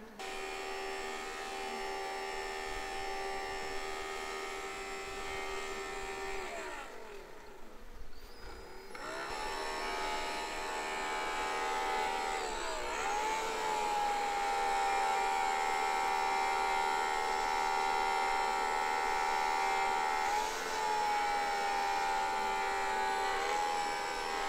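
Small electric motor and fan of a handheld cordless blower running with a steady hum; its pitch sags and recovers about a third of the way in and again near halfway, then holds steady and slightly louder.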